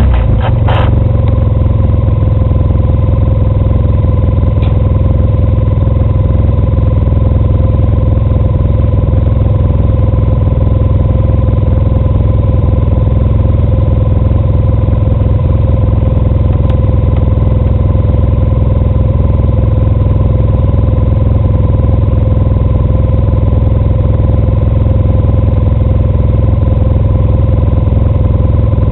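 ATV engine idling steadily, its pitch holding constant.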